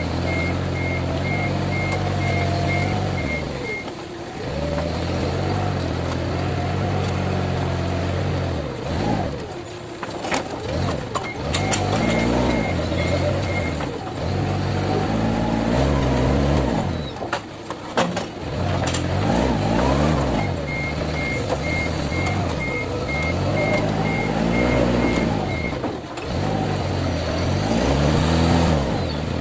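Forklift engine revving up and down, again and again, as the machine lifts, clamps and moves paper rolls, with a backup alarm beeping about twice a second in three spells.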